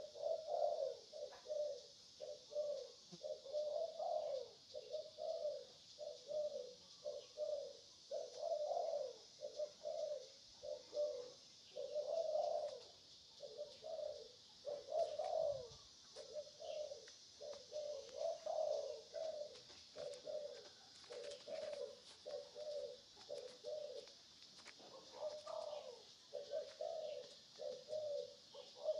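A young macaque crying: an unbroken series of short whimpering coos, about two a second, some rising higher, swelling and fading in loudness.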